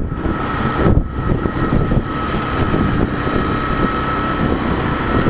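Motorcycle engine running while riding along a road, with rushing wind noise on a helmet-mounted microphone.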